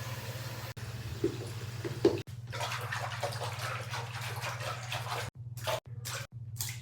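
Tap water running and splashing as squishy fidget toys are washed under it, broken by a few brief cuts in the second half.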